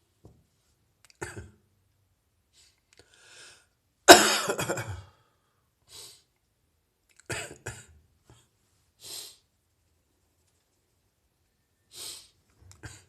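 A person's chesty cough from a lingering heavy chest cold: one loud cough about four seconds in, a shorter double cough a few seconds later, with faint breaths in between.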